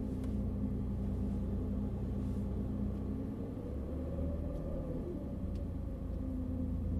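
A 2012 Jeep Liberty's 3.7-litre V6 runs steadily under light load as the Jeep creeps along in four-wheel-drive low, giving a low rumble. About four seconds in, a higher tone rises and then falls away again.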